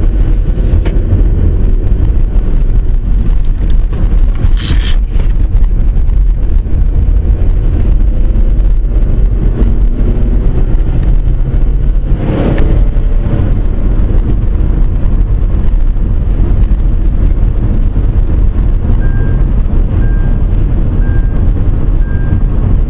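A car driving along a road, heard from inside the cabin: a loud, steady low rumble of road and engine noise, with a brief whoosh about 5 seconds in and again about 12 seconds in. Near the end a short high beep repeats about once a second.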